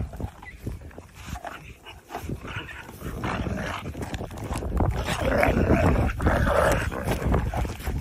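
A pack of wolves squabbling over a carcass: growls and snarls over the tearing and chewing of meat, getting busier and louder from about halfway through.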